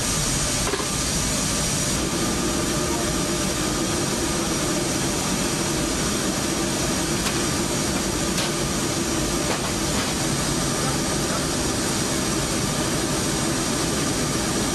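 C-17 cargo aircraft running on the ground: a steady roar with high whining tones, heard from inside the open cargo bay. A couple of light clanks sound about halfway through.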